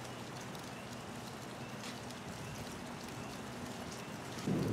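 Steady patter of rain with a low hum under it; about four and a half seconds in, a low rumble of thunder starts suddenly and goes on.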